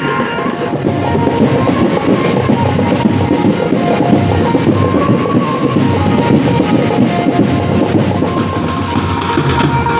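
Tasa and dhol wedding band drumming: a loud, fast, continuous beat, with a few held tones above it.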